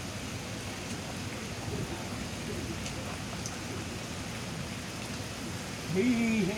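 Steady rushing noise of splashing pond water, with a voice speaking briefly near the end.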